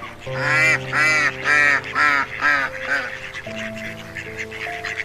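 Waterfowl giving a run of about six short honking calls in quick succession, which stop about three seconds in, over background music with steady held notes.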